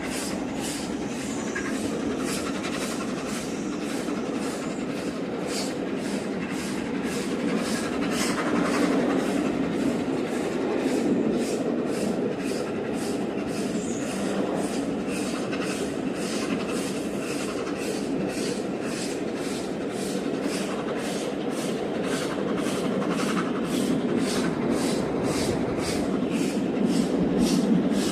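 A steam-hauled train running at speed, heard from a coach coupled behind the steam locomotive Tornado. A steady rumble, with sharp beats at an even pace of about two a second.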